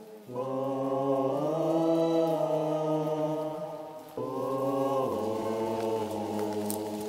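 Voices chanting in long held notes: one phrase of about four seconds that steps up in pitch about a second in, then a short break and a second held phrase of about three seconds.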